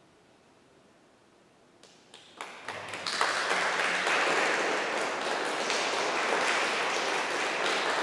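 Audience applause: after about two seconds of hush, a few scattered claps start and swell within a second into full, steady clapping.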